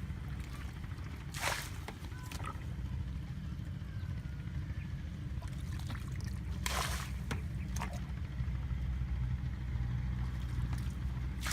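Water splashing and sloshing, with two short splashes about a second and a half in and again near seven seconds, over a steady low rumble.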